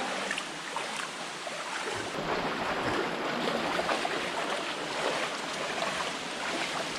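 Steady rush of a waterfall and the shallow stream flowing from it.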